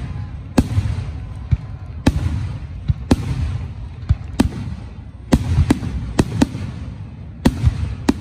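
Aerial firework shells bursting: about a dozen sharp, irregularly spaced bangs, some in quick pairs, over a steady low rumble.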